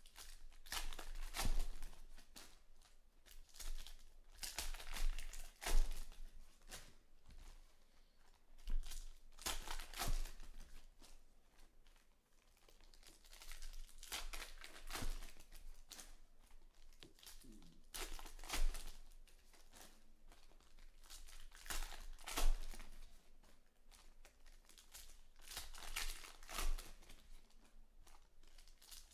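Foil wrappers of 2020 Panini Select Baseball card packs crinkling and tearing as they are ripped open by hand, in irregular bursts every few seconds.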